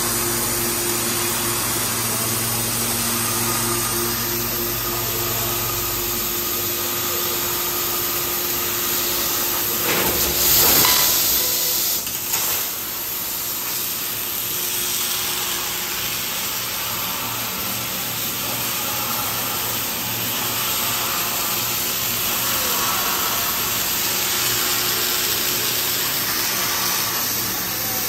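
20 kW fiber laser cutting machine cutting 20 mm mild steel with compressed air as the assist gas: a steady hiss and rush of air and cutting. A low machine hum sounds in the first few seconds, and the sound swells briefly louder about ten seconds in.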